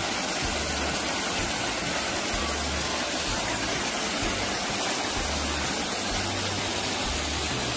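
Rain-swollen water overflowing a rock check dam and spilling in a small waterfall onto the stones and pool below: a steady rushing splash.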